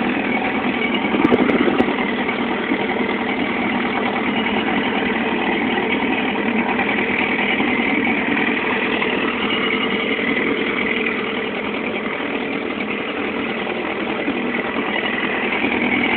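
Small fishing boat's motor running steadily at slow trolling speed, with a brief louder moment about a second in.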